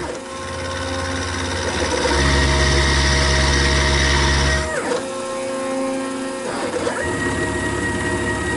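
Milling machine cutting a bevel in cast iron with a 1/4-inch ball end mill: steady motor and cutting tones, with the low hum dropping away in a falling glide near five seconds and starting again about two seconds later as the feed stops and resumes.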